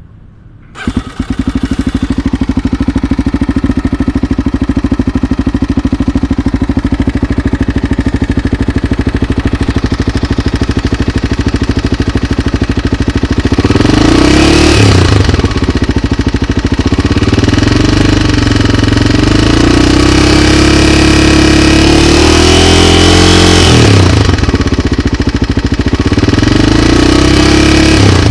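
Honda XR250's single-cylinder four-stroke engine starting about a second in and idling, then revved briefly twice, about halfway through and near the end. It runs with an abnormal engine noise that the owner takes as a sign that the engine needs an overhaul.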